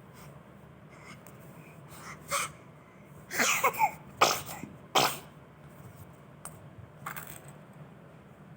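A baby sneezing: a small sneeze a little over two seconds in, then three more in quick succession, each a short sharp burst.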